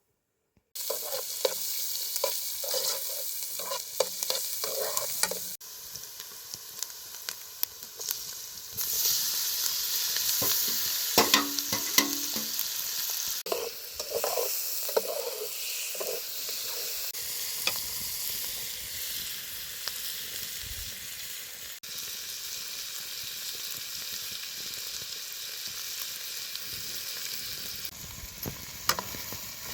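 Food sizzling and frying in a pan, with scattered clicks and scrapes of stirring. The sizzle starts abruptly just under a second in and jumps in level a few times.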